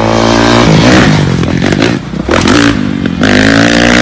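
Dirt bike engine revving hard under acceleration, its note climbing, falling back about two seconds in and then climbing again, as when shifting up through the gears.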